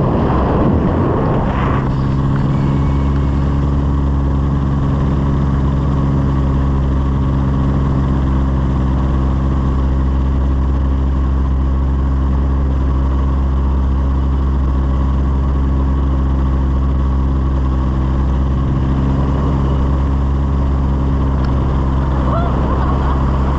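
Light aircraft's propeller engine running steadily in flight, a loud, even drone. A rush of noise in the first two seconds dies away.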